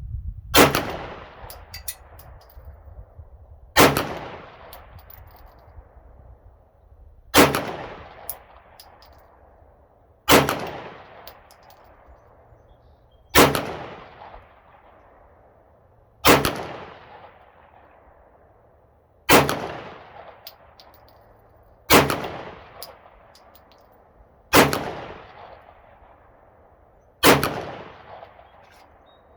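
Glock 17 Gen 5 9mm pistol firing steel-case rounds: ten single shots, evenly paced about three seconds apart, each followed by a long ringing decay.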